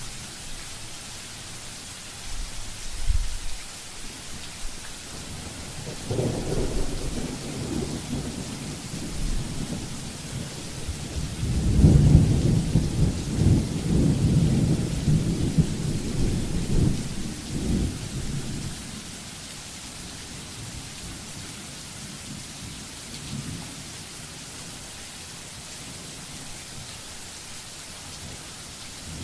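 Thunderstorm: steady rain hiss with rolling thunder. A brief rumble comes about three seconds in and a longer one about six seconds in. The loudest, longest peal builds about twelve seconds in and dies away over about seven seconds, leaving mostly rain.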